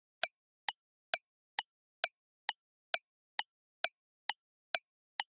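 Countdown-timer sound effect: a short, clock-like tick repeating evenly about twice a second, counting down the time left to answer.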